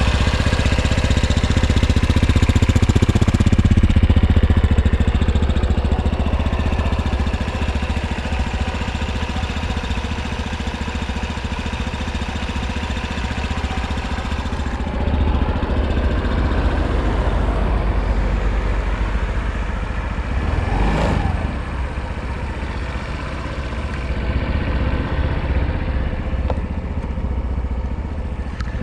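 Suzuki Vecstar 150 scooter's single-cylinder four-stroke engine idling steadily, with one brief sharp click about two-thirds of the way through.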